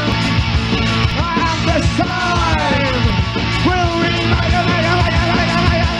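Rock band playing an instrumental passage: electric guitars over bass and drums, with lines sliding up and down in pitch.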